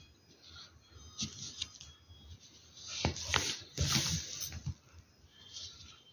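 Pencil scratching over paper in short strokes, with a louder rustle of the paper being shifted on the cloth from about three to nearly five seconds in.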